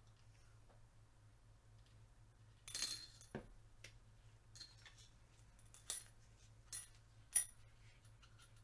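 Small steel parts of a disassembled Tec-9 pistol being handled and fitted together. A short scraping rattle about three seconds in is followed by a few sharp metallic clicks and clinks, the loudest near the end.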